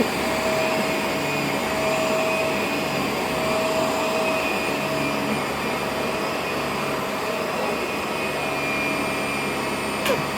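Household vacuum cleaner running steadily, its motor giving a continuous whine over a rushing air noise, with a single light knock near the end.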